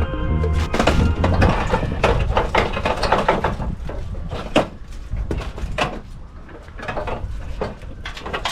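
Irregular sharp knocks and clatter, like parts and tools being handled during bodywork, over background music whose bass line drops out about a second and a half in.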